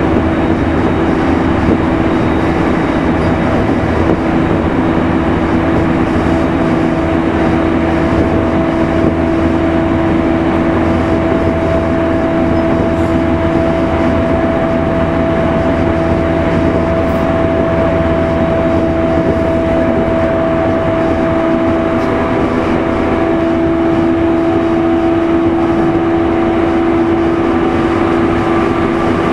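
JR E231 series electric commuter train running at a steady speed, heard inside a motor car's passenger cabin. The rumble of wheels on rail carries a steady hum from the drive underneath the car.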